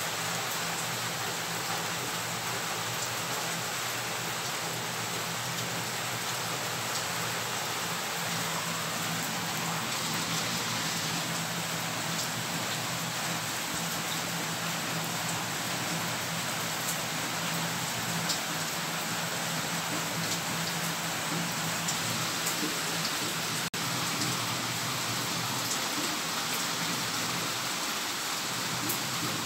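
Heavy rain falling steadily, an even hiss with scattered ticks of individual drops.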